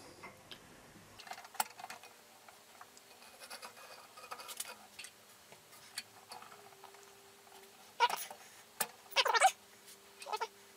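Hand-cranked bead roller pressing a bead into an aluminium sheet: scattered creaks, ticks and scratches as the sheet feeds through the rollers, with a few louder short squeaks near the end.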